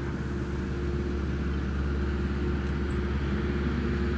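An engine running steadily at idle: an even low drone with a constant hum and no change in speed.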